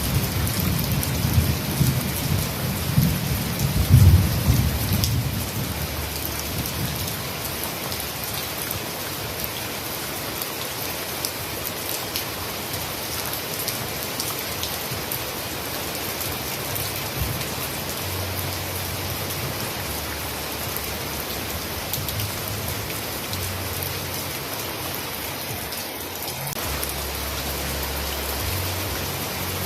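Heavy rain pouring steadily, a dense even patter. A deep low rumble sits under it for the first few seconds, loudest about four seconds in, then fades.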